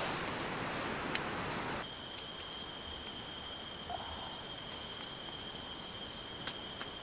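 Night insects, crickets, chirring in a steady high continuous trill. About two seconds in, the background hiss drops and a second, lower steady insect tone joins, with a few faint pops from the campfire.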